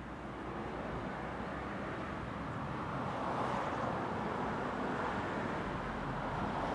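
Road traffic passing: a vehicle's noise swells and fades about halfway through and another builds near the end, over a faint low hum.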